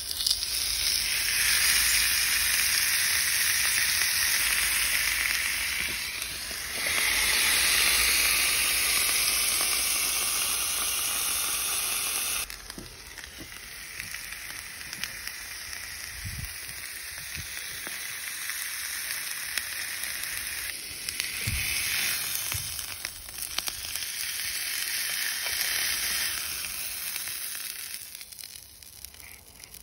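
Ribeye steak sizzling on the hot plates of a Tefal OptiGrill Elite XL contact grill. Loud for about the first twelve seconds, then suddenly quieter as the lid is down, with a few dull knocks. The sizzle fades away near the end.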